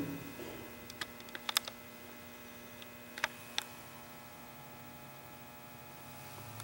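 Low, steady electrical hum, with a few faint clicks in the first few seconds.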